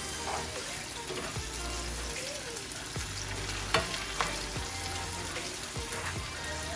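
Sliced sweet peppers, onion and tomato sizzling in oil in a nonstick frying pan while being stirred with a plastic spoon, which knocks against the pan several times.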